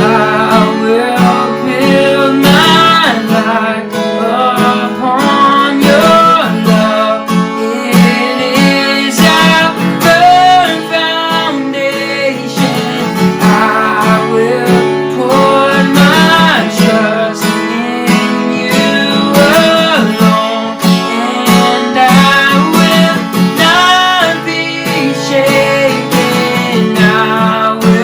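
Strummed acoustic guitar playing worship music, with a steady strumming rhythm under a melody.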